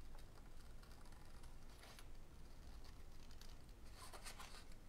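Faint, short snips of small paper snips cutting a Post-it note, with a louder run of snips about four seconds in.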